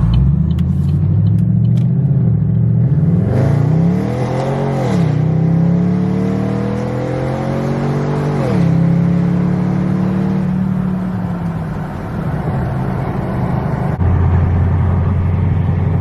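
2014 Chevy Caprice PPV's L77 6.0-litre V8 accelerating through the gears, its exhaust note climbing in pitch and falling at two upshifts, about five and eight and a half seconds in, then running steadily. The exhaust has the catalytic converters and resonators deleted and runs Dynomax bullet mufflers.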